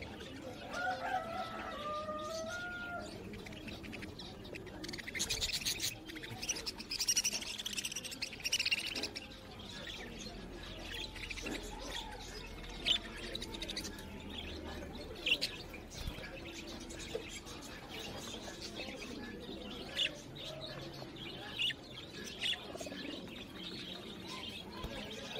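Birds chirping in the background, with a rattling stretch and then several separate sharp clicks and knocks as parts are handled and fitted on a wooden base.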